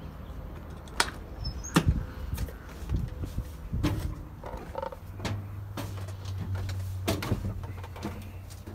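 Heavy truck's diesel engine idling with a steady low hum, with several sharp knocks and clicks over it.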